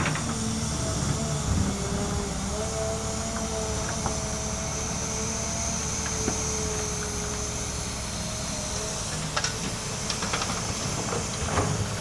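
Excavator's diesel engine and hydraulics running under load, a steady rumble and hiss with a pitched whine that rises and holds for a few seconds in the first half. A few sharp knocks come near the end.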